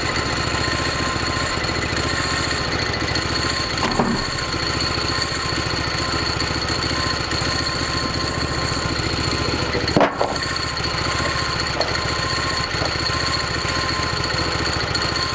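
Portable band sawmill running, its engine driving the blade through a log with a steady high whine over the engine. Two sharp knocks come about four and ten seconds in.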